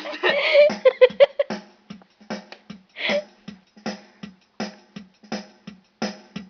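Electronic keyboard playing a built-in drum-machine rhythm: a steady beat of short strokes, about three a second. A pitched, voice-like sound lies over the beat for the first second and a half, then stops.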